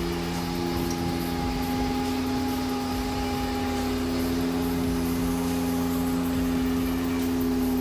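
Multiquip ride-on power trowel running steadily as its twin rotors smooth the fresh concrete slab, with an even engine hum holding a few steady tones.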